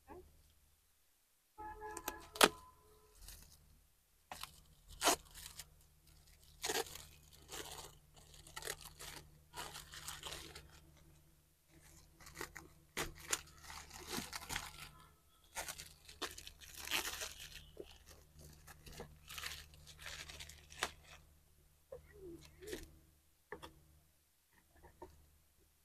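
Shiny metallic gift-wrapping paper being torn off a box and crinkled, in irregular rustling and tearing bursts with a few sharp snaps early on.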